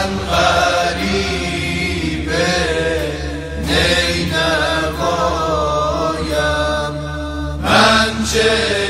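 Male tawasheeh group chanting a Shia mourning lament: a lead voice sings long, wavering, ornamented lines over a steady low drone.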